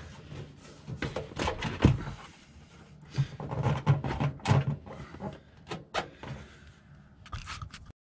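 Sheet-metal RV furnace housing being pushed and shifted into its cabinet by hand: a run of irregular knocks, clunks and scrapes.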